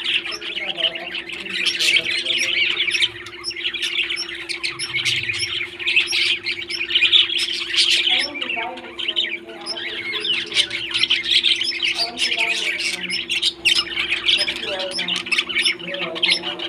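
A flock of pet parrots chattering and squawking nonstop, many quick high calls overlapping, over a steady low hum.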